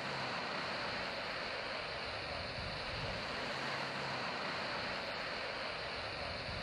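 Steady, distant rushing of an Airbus A380's four jet engines as the airliner rolls away down the runway.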